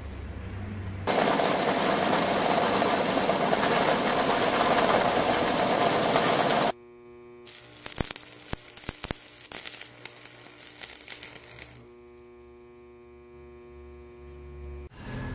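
Electric arc welding on square steel tube: a loud, even hiss of the arc for about six seconds that cuts off suddenly, then scattered crackles and a steady electrical hum from the welder.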